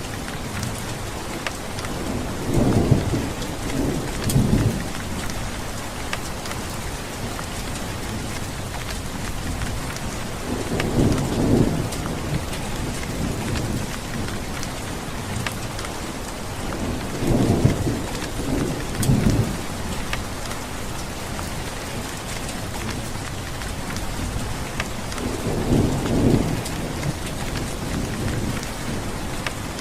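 Steady heavy rain falling on a surface, with scattered sharp drop ticks, and four low rumbles of thunder rolling in about every seven seconds.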